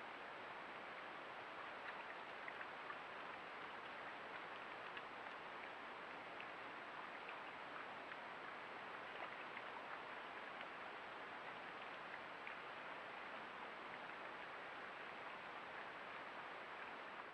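Steady faint rushing of water with scattered tiny ticks, picked up by a trail camera's microphone.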